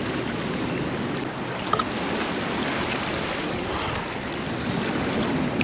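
Steady rushing of river water flowing over a concrete step and shallow shoals.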